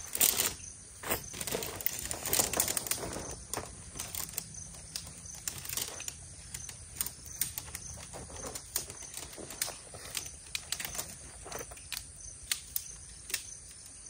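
Scattered light clicks and rustles, irregular and thickest in the first few seconds, over faint steady insect chirping.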